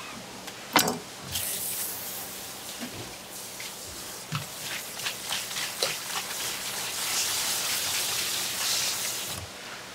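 Tap water running in a steady hiss, rinsing sliced fish in a plastic basket, with a few light knocks. The water comes on about a second in and stops shortly before the end.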